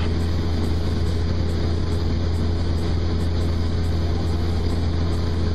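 Cessna 172's piston engine and propeller droning steadily at cruise power in level flight, heard from inside the cockpit: an even, low hum that does not change.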